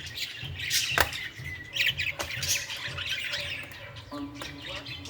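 Birds chirping repeatedly, with two sharp clicks about one and two seconds in, over a low hum.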